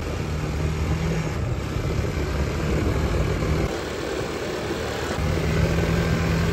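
Quad bike engines running under throttle, the engine note falling away for about a second and a half past the middle, then picking up again.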